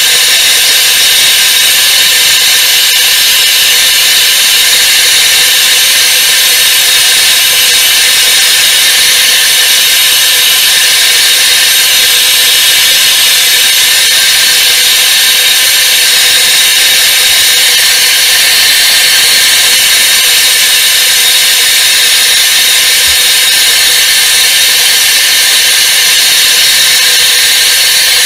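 MAPP gas torch burning with a loud, steady hiss, heating the file-steel blade for hardening.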